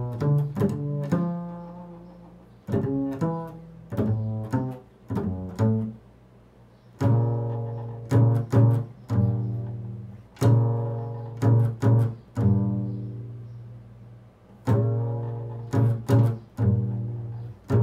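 Upright double bass played pizzicato: an improvised line of plucked low notes built on the interval of a third, each note ringing and fading. The notes come in short phrases with brief pauses between them.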